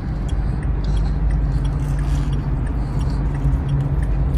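Steady low hum of an idling car, heard inside its cabin, with a few faint crunches of chewing.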